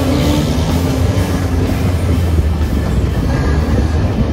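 Steady rumble of an open-top jeep driving on a rough mountain road, mixed with background music.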